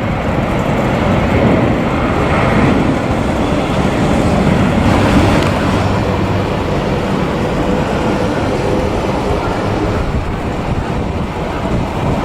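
Jet airliner engine noise, a loud steady rush, slightly louder in the first half, mixed with wind on the microphone.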